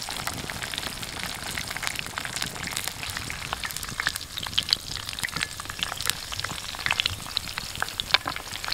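Breaded chicken pieces deep-frying in hot oil: a steady sizzling hiss with scattered pops and crackles, which grow sparser and sharper from about four seconds in.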